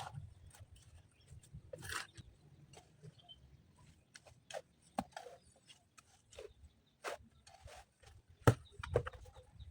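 Scattered short knocks and clicks over a faint low rumble, with one sharper knock near the end.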